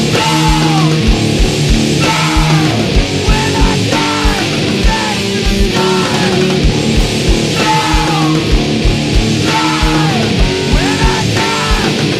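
Instrumental passage of loud, noisy post-hardcore rock played on distorted electric guitars, bass and drum kit. Guitar notes slide or bend downward about once a second over a steady, driving kick drum.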